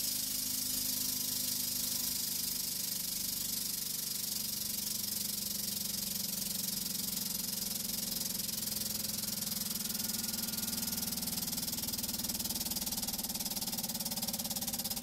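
Hydraulic press running steadily while its ram slowly squeezes a coil of bubble wrap: a continuous hiss over a low, even hum.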